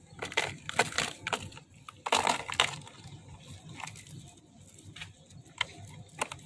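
Thin plastic water bottle crackling and clicking as it is handled: a string of short, sharp crackles, with a louder cluster about two seconds in.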